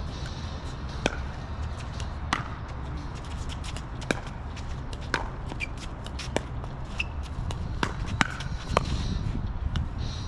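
Pickleball rally: paddles striking the hollow plastic ball with sharp pocks about once a second, with lighter ticks in between, over a steady low rumble.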